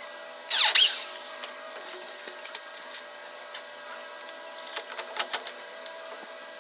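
Electric drill running in a short loud burst as it bores into pallet wood, about a second in. A string of sharp clicks and knocks follows about five seconds in.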